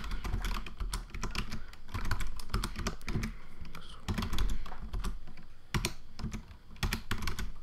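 Computer keyboard keys tapped in short, irregular runs of clicks, as shortcut keys are pressed one after another.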